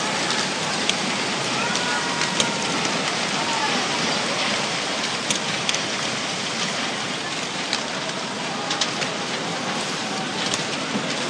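Steady rushing of floodwater through a wrecked town, scattered with short sharp cracks and snaps of debris.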